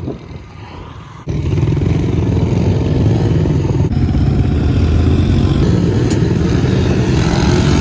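Yamaha TT-R110 pit bike engines, small air-cooled four-stroke singles, running as the bikes ride along, heard close up. The sound is quieter for about the first second, then turns into a loud, rough, steady rumble.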